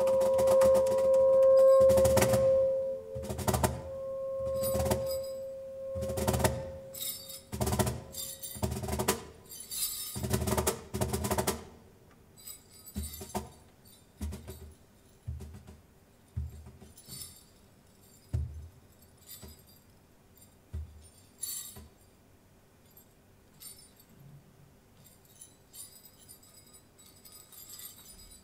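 Live drum-kit percussion with a held woodwind note: loud, uneven drum strikes under a long sustained note for the first several seconds. After about twelve seconds the playing drops to sparse, soft taps and light metallic jingles.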